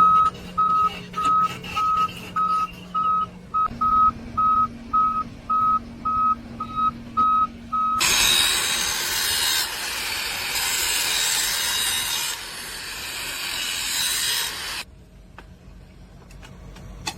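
Electronic beeping, about two and a half short beeps a second, for the first half. About eight seconds in, a MIG welding arc strikes and runs as a steady crackling hiss for about seven seconds, then cuts off suddenly.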